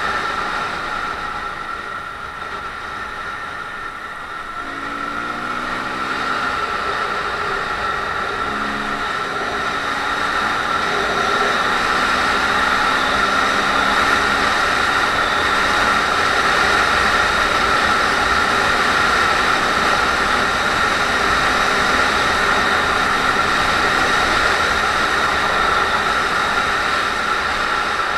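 Honda MSX125's single-cylinder four-stroke engine running under way, heard through heavy wind rush on the microphone. The engine note shifts in the first few seconds, and the sound grows louder about six seconds in as the bike picks up speed.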